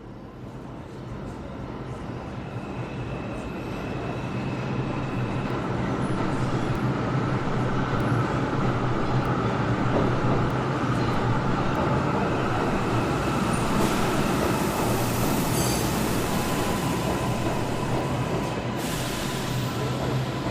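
Metro train approaching along the track, growing louder over the first five or six seconds, then running steadily with a low hum and a high whine.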